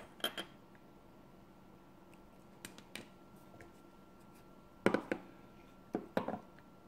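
Scattered sharp clicks and taps of small hard objects being handled: a metal test-probe tip and 9-volt batteries being moved and touched together, loudest in two clusters a little before the end. A faint steady whine sits underneath.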